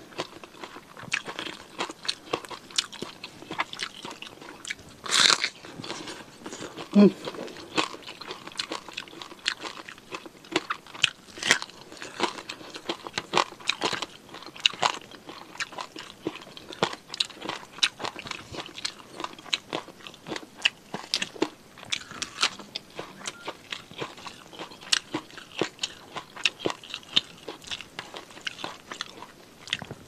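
Close-up chewing and crunching of fried quail: crisp skin and bone cracking between the teeth in rapid, irregular crackles, with two louder smacks about five and seven seconds in.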